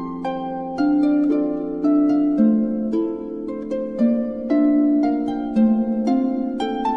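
Background music: a harp plucking a gentle melody, a note about every half second, over low sustained notes.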